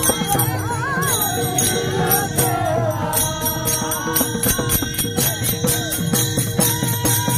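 Marathi devotional kirtan music: a voice sings a winding, ornamented melody over a steady drone, while jingling hand cymbals keep a quick, even beat of about four strokes a second.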